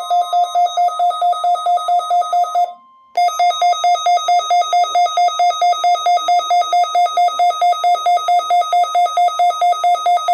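A weather alert radio's alarm beeping rapidly: a loud, buzzy electronic tone pulsing about four or five times a second. It breaks off briefly about three seconds in, leaving a fainter steady tone, then resumes.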